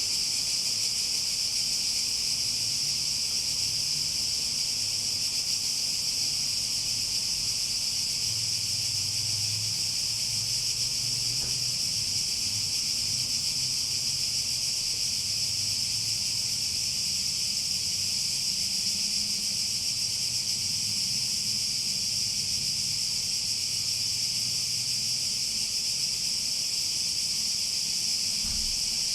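Cicada chorus: a steady, unbroken high-pitched buzz.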